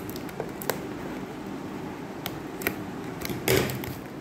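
Short clicks and scratches of a cutting tool and fingers working at the tape seal on a cardboard box, with a louder tearing rasp about three and a half seconds in. A steady low hum runs underneath.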